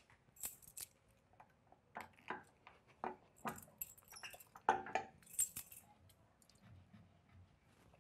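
Faint, irregular clicks and rustles, a dozen or so short sounds spread unevenly through the quiet, with no steady background.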